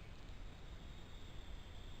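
Quiet pond-side outdoor ambience: a steady low rumble with a faint, steady high-pitched trill over it.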